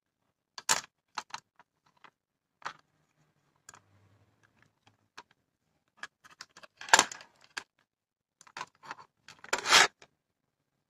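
Scattered light clicks and taps of multimeter test probes and a small circuit board being handled on a workbench, with two louder clatters, one about seven seconds in and a slightly longer one near the end.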